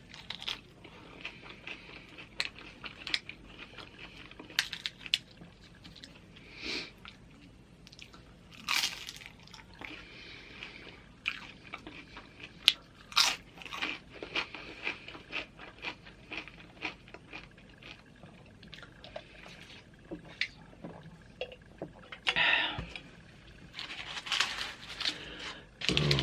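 Close-up crunching and chewing of loaded tortilla-chip nachos: irregular sharp crunches of the chips between wetter chewing, with bunches of louder crunching near the end.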